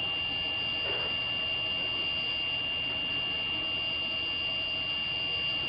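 Steady high-pitched electronic whine over a constant hiss: the noise floor of a school bus security camera's audio recording.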